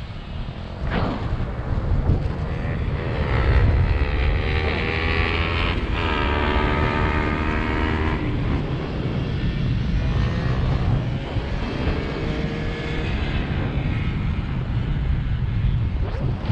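Airflow buffeting the microphone of a paraglider's harness camera in flight. From about three seconds in to about thirteen seconds in, a distant engine drones behind it, rising and falling in pitch.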